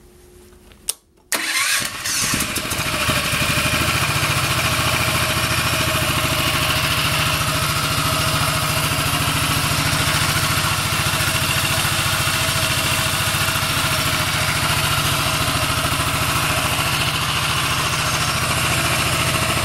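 DuroMax 7 hp single-cylinder horizontal-shaft engine, newly fitted to a quad, starting about a second in and then running steadily. It exhausts through a small Honda XR80 motorcycle muffler.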